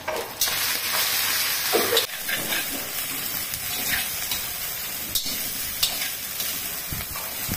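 Oil sizzling in a hot kadhai as cooked jowar grains are stirred through it with a steel spatula. The spatula clicks and scrapes against the pan now and then. The sizzle is loudest in the first second or two.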